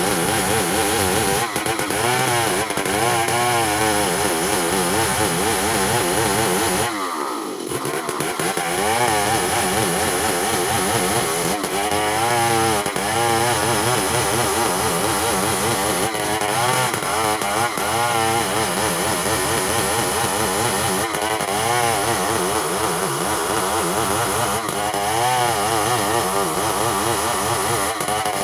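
Chainsaw running at full throttle, ripping lengthwise through a log to cut planks, its pitch wavering as it works under load. About seven seconds in, the engine briefly drops lower and then picks back up.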